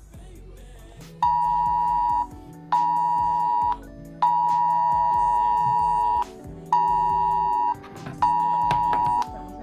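Wireless Emergency Alert attention tone sounding from a phone: five loud, steady two-pitch blasts with short gaps, each about a second long except the middle one, which lasts about two seconds. It announces a nationwide test alert.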